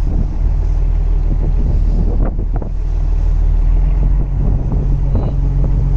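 Boat engine running steadily with a low, even hum, under wind buffeting the microphone.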